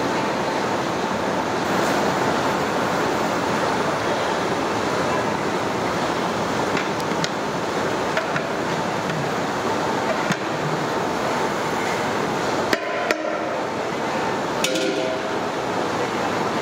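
Steady rushing noise of the burner under a large aluminium biryani pot, with several sharp clinks of a steel ladle against the pot as the rice and vegetables in water are stirred; two of the clinks come close together near the end.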